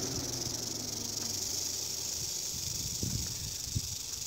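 Western diamondback rattlesnake rattling its raised tail in a steady, high, dry buzz without a break: the warning of a snake coiled in a defensive stance.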